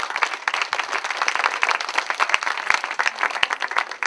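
Audience applauding: many hands clapping at once in a dense, continuous spell.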